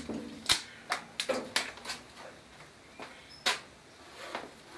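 Handling noise: a string of irregular sharp clicks and knocks from hard objects being moved and set down, bunched in the first two seconds with a couple more later.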